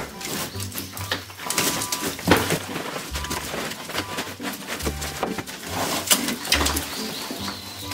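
Bamboo lath lattice and dried clay plaster of a traditional mud wall being torn out, clattering and crashing down in a run of sharp knocks.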